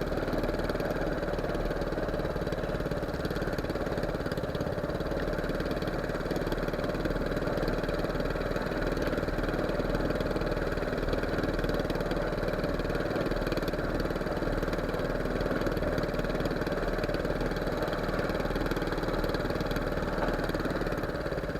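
Fishing boat's engine running steadily at an even speed.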